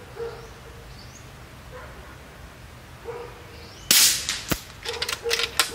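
A single shot from an Uragan 2 PCP air rifle about four seconds in, followed about half a second later by one sharp tick, then a quick run of metallic clicks as the cocking handle is worked to load the next slug.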